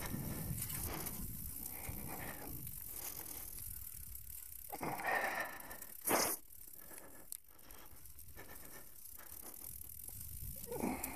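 Mountain bike being ridden over leaf-covered dirt singletrack: tyre noise and the bike rattling over bumps, with one sharp knock about six seconds in.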